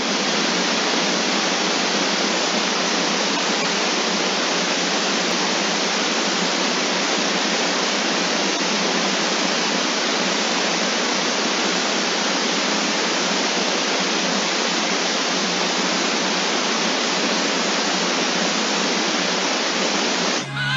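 A steady, even hiss like static, unchanging in level, stopping suddenly just before the end.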